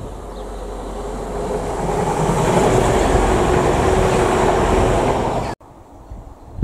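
TransPennine Express Class 185 diesel multiple unit passing close by. Engine and wheel-on-rail noise builds over the first two seconds, then holds loud with a steady droning note, and cuts off suddenly near the end.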